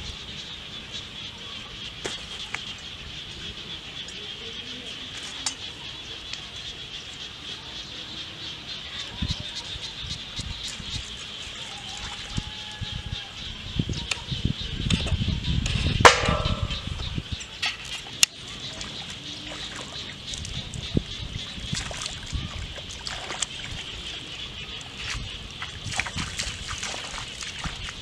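Bare feet splashing and sloshing through shallow muddy rainwater, loudest in a stretch near the middle, with a sharp knock about 16 seconds in. A steady high-pitched chorus runs behind it.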